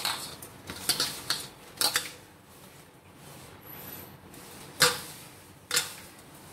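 Hands rubbing and pressing a dry, crumbly besan and powdered-sugar mixture in a stainless steel plate, with about six sharp metallic clinks on the steel that ring briefly, the loudest about five seconds in.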